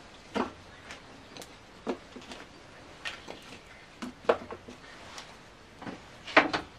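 A series of short, irregular clicks and knocks, about a dozen, the sharpest about four seconds in and near the end.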